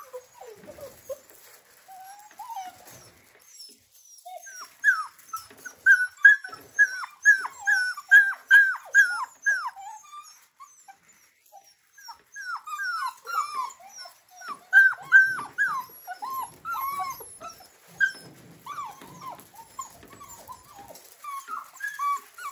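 Seven-week-old Australian Labradoodle puppies whimpering and yipping, a run of short high-pitched cries coming about two a second, with a brief lull about halfway through.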